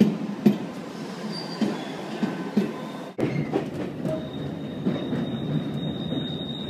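Electric passenger train moving on rails, with spaced clacks of wheels over rail joints. About three seconds in the sound cuts abruptly to the running noise heard aboard a moving train, and a steady high whine joins about a second later.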